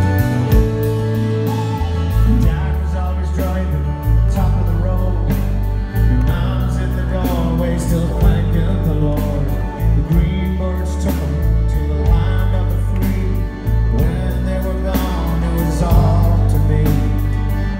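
Live band playing a pop song, with a steady drum beat, bass and guitar, and a male lead voice singing over it through the middle.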